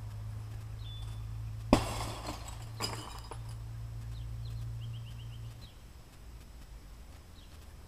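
A thrown basketball hits something with a sharp crash and a glassy clinking ring about two seconds in, followed by a smaller knock about a second later. Birds chirp faintly in the background.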